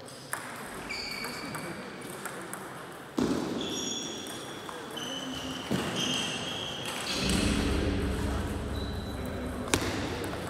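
Table tennis ball clicking sharply off bats and table now and then, with several short high squeaks of sports shoes on the hall floor.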